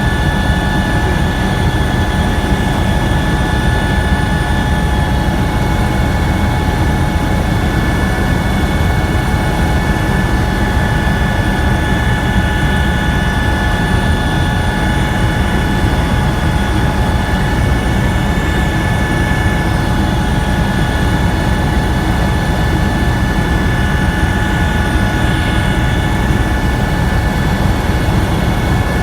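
Helicopter in flight, heard from on board: a loud, steady drone of engine and rotor with a constant high whine over it.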